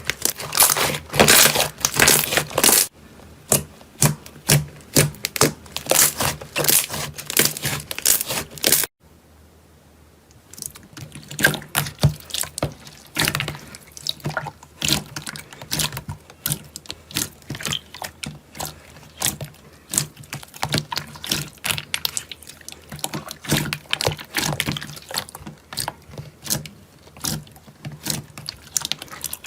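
Hands squishing, poking and stretching slime: dense, irregular wet clicking and popping. The sound changes abruptly about 3 and 9 seconds in, with a brief quieter stretch after the second change.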